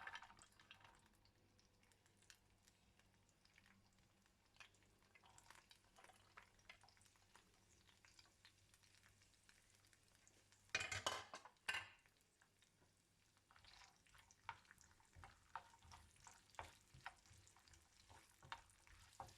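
Chopped almonds, peanuts and cashews being stirred as they lightly fry in a pan: faint scrapes and clicks of the spatula on the pan, with one louder burst of noise lasting about a second, about eleven seconds in.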